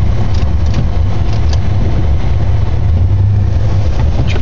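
Ford F-150 pickup's engine running steadily under load, a constant low drone, as the truck tries to dig its way through snow and mud.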